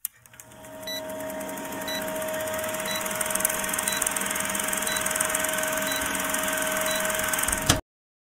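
Old film projector sound effect for a countdown leader: a steady mechanical whirring clatter with a faint short tick about once a second as the numbers count down. It fades up over the first second and cuts off abruptly with a sharp click near the end.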